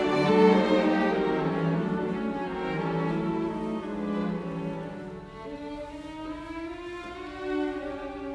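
Background music on bowed strings, violin and cello, playing slow held notes over a low line.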